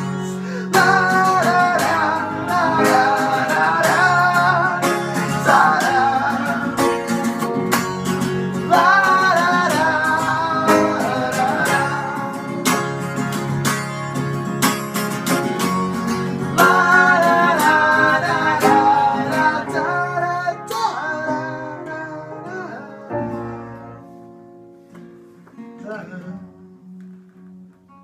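Live band music: a strummed guitar under wordless sung lines in several phrases. After about twenty seconds the music thins out and dies down to a few soft held guitar notes.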